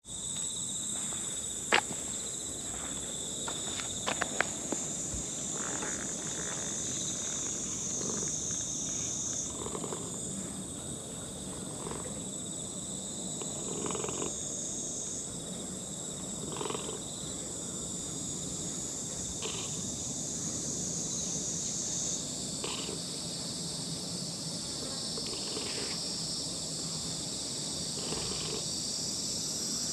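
Steady high-pitched chorus of summer insects buzzing, with a few sharp clicks in the first few seconds.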